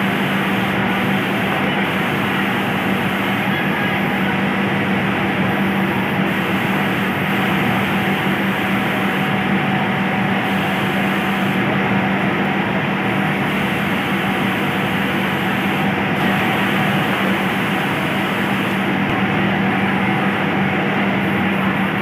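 Steady din of a garment factory floor: many industrial sewing machines running together over a constant low hum.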